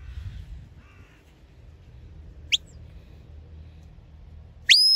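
Shepherd's whistle commands to a working sheepdog: a short, sharp rising whistle about halfway through, then a loud whistle that rises and holds its pitch near the end.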